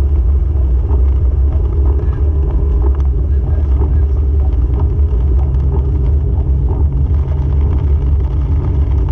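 Car cabin noise while driving in heavy rain: a steady low rumble of engine and tyres on the wet road.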